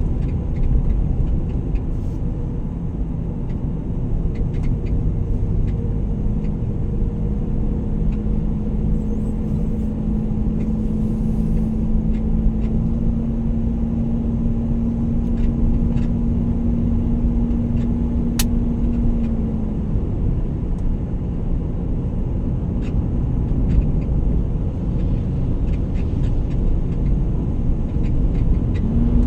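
Vehicle on the move: a steady low road rumble with an engine hum, the hum's pitch holding for a stretch and then dropping away about two-thirds of the way through.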